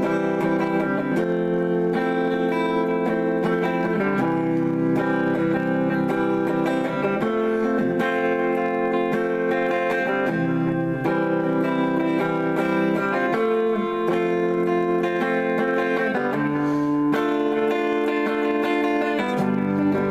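Guitar playing a slow run of sustained chords in the key of C, moving to a new chord every few seconds.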